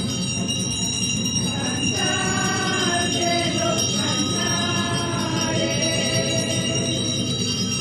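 Religious hymn music with singing voices, going on steadily.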